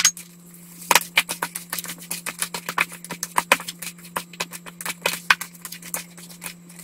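Hands mixing raw chicken liver with starch in a plastic bowl: a fast, irregular run of wet squelches and clicks, after one sharp tap at the start, over a steady low hum.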